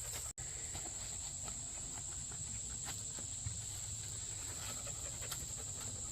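A steady, high insect chorus of crickets, with a low rumble and a few faint scattered ticks beneath it. The sound drops out for an instant about a third of a second in.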